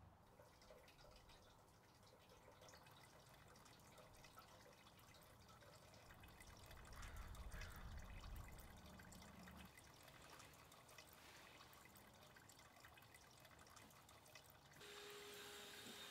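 Faint water dripping, many small irregular drips. The sound changes abruptly near the end to a steadier hiss.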